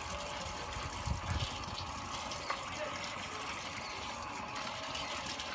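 Steady rush of water, as when water is poured or runs during cooking preparation.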